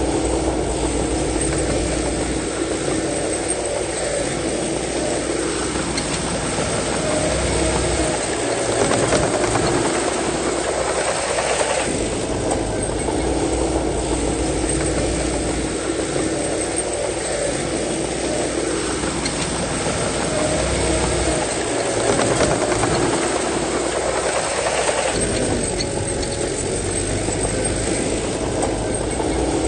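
Bulldozer's diesel engine running continuously at work, its note swelling and easing off twice.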